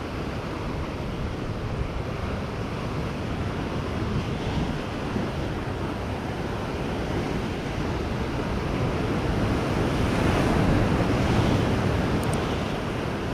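Heavy sea surf breaking and washing over shoreline rocks, with wind buffeting the microphone. The surf swells louder about ten seconds in.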